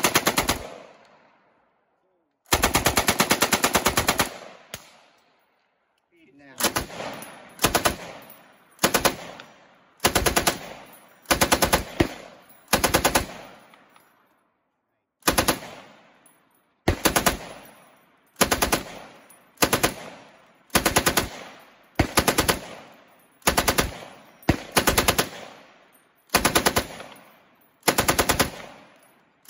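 Machine guns firing on full auto. First comes one long burst of about two seconds, then a belt-fed machine gun fires a string of short bursts of rapid shots, a new burst about every second and a half, each trailing off in echo.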